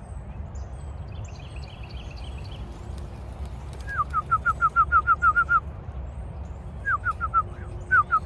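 A small bird chirping in rapid runs of short, falling notes, three bursts of them, the longest about a second and a half, over a steady low rumble of wind on the microphone.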